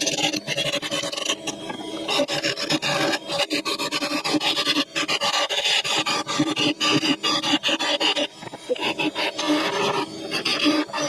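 A turning tool cutting a spinning wood blank on a lathe: rapid, uneven rasping and scraping over the lathe's steady hum.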